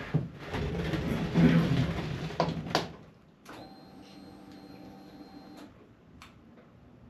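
Clattering and clicks of parts being handled, then a small motor whines steadily for about two seconds and cuts off abruptly, followed by a single click.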